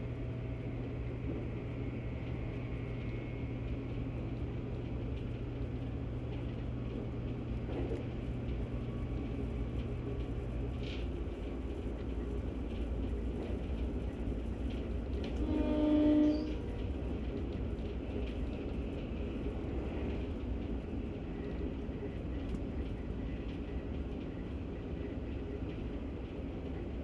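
JR Kyushu 783 Series electric train running, heard from inside the passenger car: a steady rumble from the wheels and rails, with a low hum that stops about eleven seconds in. A train horn sounds briefly about sixteen seconds in.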